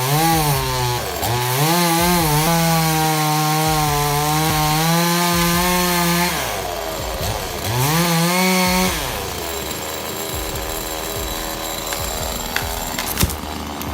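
Two-stroke chainsaw engine of an automatic tree-cutting machine, 62 cc, revving up to full throttle and holding a high steady pitch for about six seconds. It drops off, revs up again briefly, then falls back to a quieter, rougher running sound.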